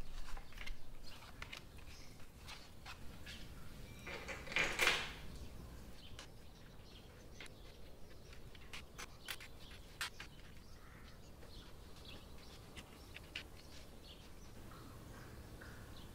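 Light clicks and taps of paper postcards and small clips being handled and pinned onto a wire wall grid, with one louder rustle about four to five seconds in.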